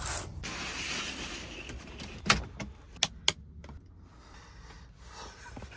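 Camper van window curtains being drawn shut, the fabric rustling and the runners rattling along the track. Then two sharp clicks, about two and three seconds in.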